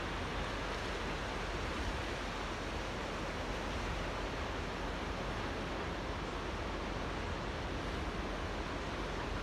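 Small waves lapping in a tidal channel: a steady, even wash of water noise with a low rumble underneath.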